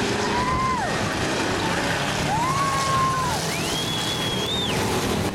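Dirt-track bomber-class stock cars racing past, their engines running together as a loud, steady din. Over it come three long, shrill cries from the crowd, the last and highest about four seconds in.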